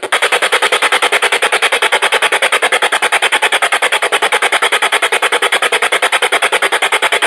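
Goregrind/noise music: harsh, dense distorted noise pulsing in a very fast, even rhythm.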